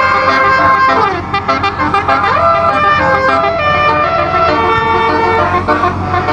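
A set of twelve-note 'basuri' telolet air horns, driven from a MIDI module, plays a tune with several horn notes sounding together. About a second in one note slides down, and about two seconds in another slides up.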